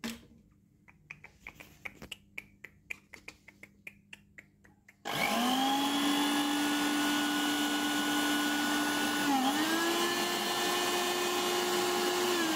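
A plug clicks into a socket, followed by a few light handling clicks. About five seconds in, the Sunbeam SSGB-400 blender's motor starts and runs steadily with a whine, its pitch dipping briefly and settling a little higher. The motor runs again now that the bent contact plate presses its safety switch.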